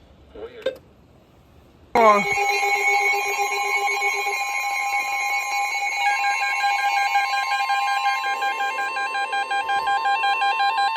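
Emergency alert attention tone: several high tones sound together, some steady and some warbling, starting suddenly about two seconds in, running about nine seconds and cutting off sharply. It is the alarm that signals a new emergency warning is about to be read.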